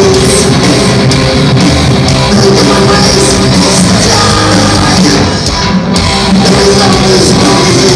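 Heavy metal band playing live, with distorted electric guitars, bass and drums, loud and dense throughout, heard from the audience.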